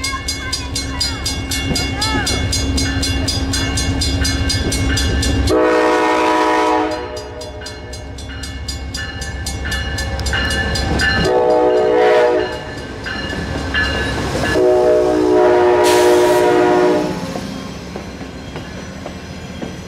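Amtrak GE Genesis diesel locomotive approaching with a deep engine rumble, then sounding its multi-chime air horn in three blasts, the third the longest. Near the end its passenger cars roll past close by, wheels clacking over the rails.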